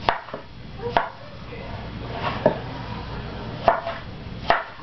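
Kitchen knife cutting a tomato into wedges, the blade knocking down sharply five times at uneven gaps of about a second.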